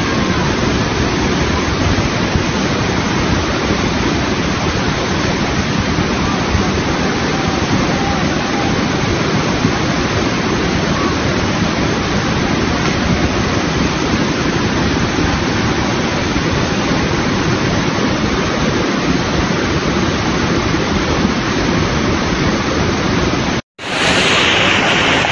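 Overflowing mountain creek in flash flood, its fast, mud-laden water rushing with a loud, steady noise. Near the end the sound cuts out for an instant and a second stretch of flood water is heard.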